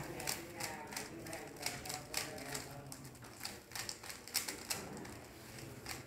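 Plastic 3×3 Rubik's cube being turned fast by hand: irregular clicking as its layers snap round, about two or three clicks a second.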